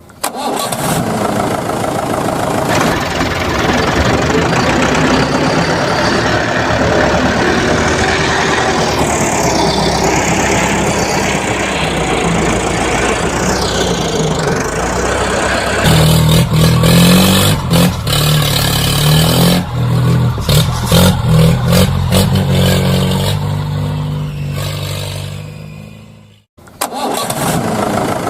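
Tractor engine sound starting and running, with uneven revving that grows louder about halfway through. It fades and briefly cuts off near the end.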